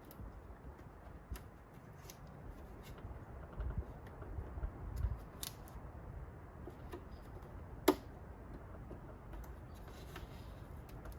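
Scattered small clicks and handling noises of a hand tool working at car body trim, with one sharp click about eight seconds in.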